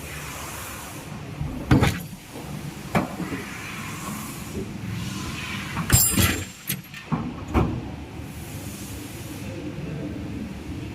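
Tata 407 CNG truck engine idling with a steady low drone, broken by several sharp metallic knocks, the loudest about two seconds in and again about six seconds in.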